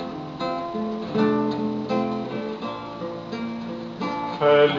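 Acoustic guitar played solo, a run of plucked notes and chords, each ringing briefly before the next.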